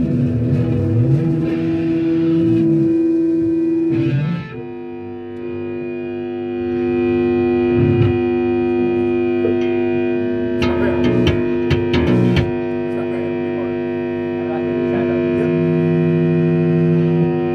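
Distorted electric guitar through an amplifier, holding steady ringing notes. The notes break off briefly about four seconds in and then ring on, with a few sharp clicks or scrapes about eleven to twelve seconds in.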